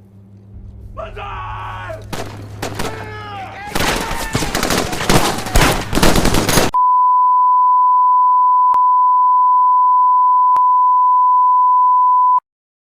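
A loud, chaotic burst of noisy, distorted sound with gliding pitches builds up and then breaks off abruptly. A steady single-pitched broadcast test tone follows for about five and a half seconds and cuts off suddenly.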